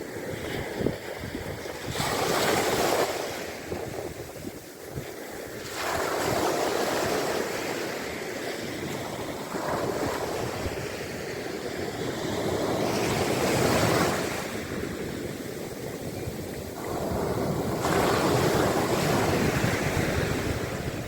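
Mediterranean sea waves breaking on the shore, the surf surging up and falling back five times, every few seconds.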